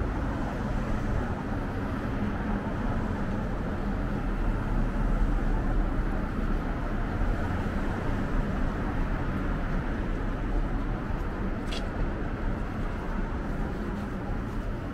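City street traffic noise: a steady hum of passing cars and engines. A brief high-pitched squeak stands out a few seconds before the end.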